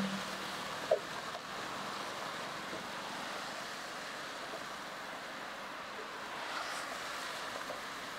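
Steady rushing noise of highway traffic and wind, with one brief sharp sound about a second in.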